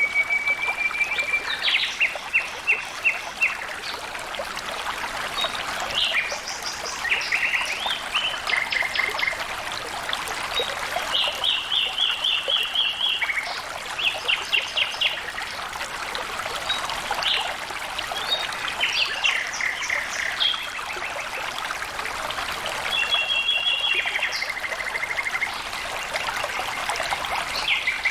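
Water flowing steadily. Birds sing over it throughout, in short phrases of rapid trills and quickly repeated notes.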